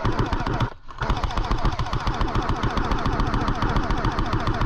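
Airsoft guns firing rapid full-auto bursts, a fast even clatter of shots that pauses briefly just under a second in and then runs on unbroken.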